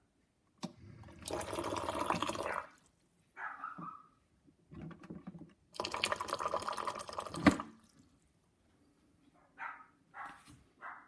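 Water pouring in two short spells, each about a second and a half, with a few brief drips or splashes between them.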